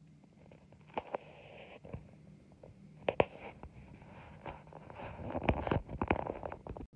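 Rustling of hospital bedding and handling noise on a phone's microphone, with scattered sharp clicks, heaviest near the end as the phone is turned around.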